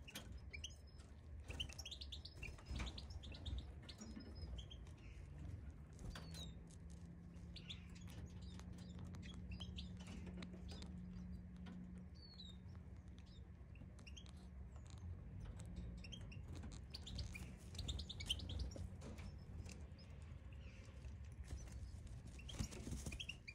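European goldfinches chirping: short high chirps and twitters scattered throughout, with a low steady hum in the middle.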